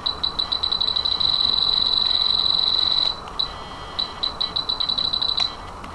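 Spektrum DX7 radio transmitter beeping as its programming keys are pressed to step a setting: a run of quick high beeps that speeds up into one continuous tone for about two seconds when a key is held, then another run of separate beeps.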